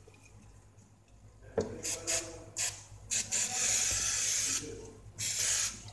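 Aerosol can of oil-free contact cleaner sprayed onto a radio's circuit board in hissing bursts: a few short squirts, then a long spray of over a second and another near the end. A single knock comes just before the first squirt.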